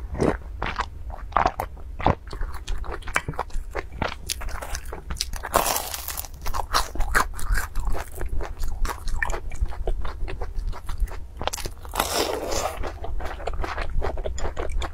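Close-miked eating: a sip from a glass bowl, then biting and chewing fried dough sticks (youtiao) soaked in a milky drink. Many quick wet crunches and mouth clicks, with a couple of longer slurping stretches about six seconds in and near the end.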